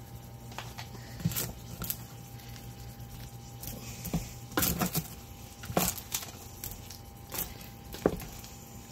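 Wooden spoon stirring caramel-coated popcorn in an enamel roasting pan: irregular scraping, crunchy rustling and light knocks at no steady rhythm.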